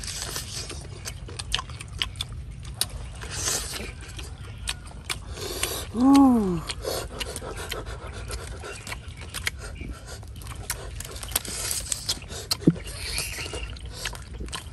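Close-up eating sounds of roast duck being torn apart and chewed by hand: many sharp little crackles and clicks of crisp skin, meat and small bones breaking, with some scraping. A short hum from one of the eaters about six seconds in.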